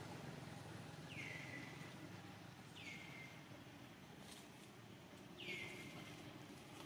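A bird calling three times, each call a quick downward slide that settles into a short steady whistle, over a faint outdoor background.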